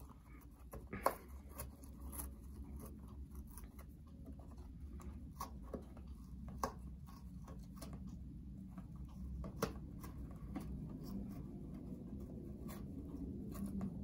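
Congo African grey parrot biting and tearing at a cardboard tissue box: irregular crunching and snapping of cardboard, with sharper snaps about a second in and again around the middle. A steady low hum runs underneath.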